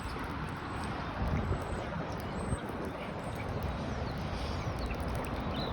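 Steady rush of flowing creek water, with a low rumble underneath.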